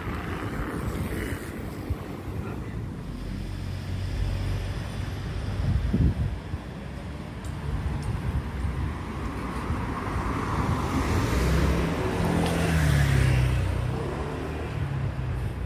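Street ambience of traffic noise with wind buffeting the microphone. A vehicle passes close, rising and fading over a few seconds near the end, and there is a single thump about six seconds in.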